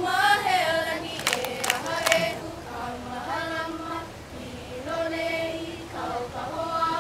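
Group of voices singing a hula song together in long held notes, with a few sharp clicks between one and two seconds in.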